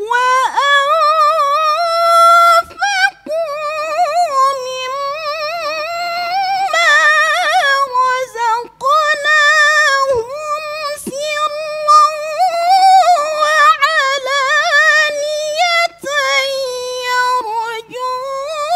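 A woman's voice reciting the Qur'an in melodic tilawah style: a high voice holding long notes with wavering ornaments and vibrato, broken by a few short pauses for breath.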